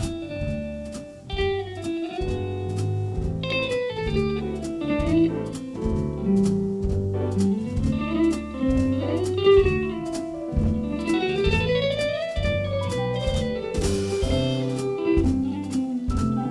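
Jazz combo playing an instrumental break: a guitar solo with sliding notes over walking bass and drums, with steady cymbal strikes keeping time.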